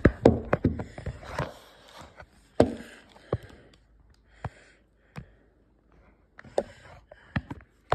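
Handling noise from a small cardboard box and the phone held close to it: a cluster of rustles and knocks in the first second and a half, then scattered sharp taps and clicks about once a second.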